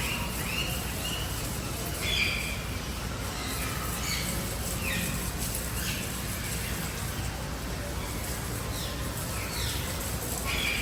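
Birds calling at a bird park: short chirps and downward-slurred calls come every second or so over steady background noise, with the loudest call about two seconds in.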